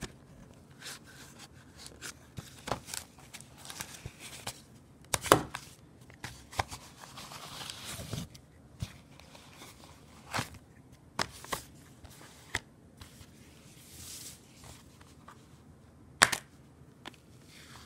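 Plastic Blu-ray case being handled and opened: scattered clicks, snaps and knocks of hard plastic, with a short rustle about halfway through.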